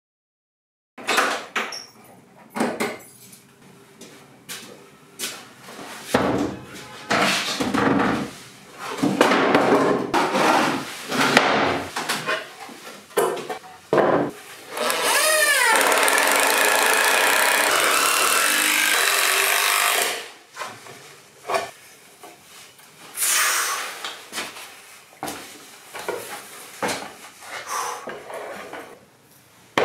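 Knocks and clatter of wooden pallet boards being handled and fixed, with a power tool running steadily for about five seconds midway.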